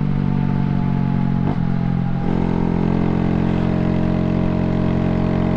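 Honda Grom's single-cylinder motorcycle engine running at a steady cruise, with a brief click about a second and a half in.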